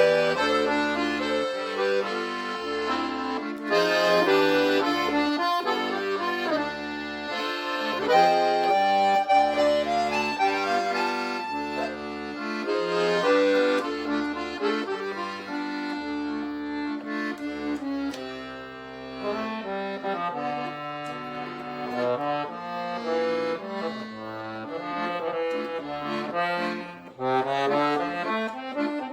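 Forró band playing an instrumental intro led by an accordion (sanfona) melody, over electric bass and zabumba, triangle and pandeiro percussion.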